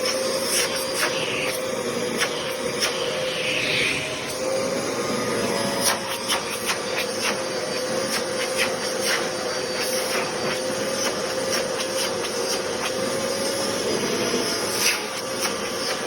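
Hoover WindTunnel upright vacuum cleaner running steadily, its motor giving a steady whine over the rush of air. Scattered clicks and rattles come through as it sucks up debris.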